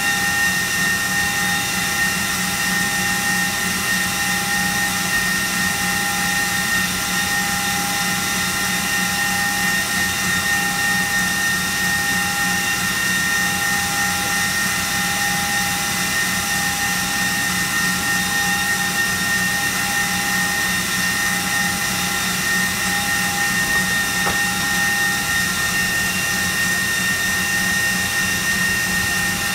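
Electric mixer running at one steady speed with a constant high whine over a low hum, beating the sponge-cake batter.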